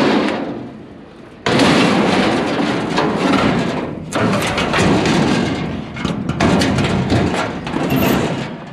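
A loud thud, then several seconds of clattering and scraping as a metal scrap item is pushed and shifted into place among the load.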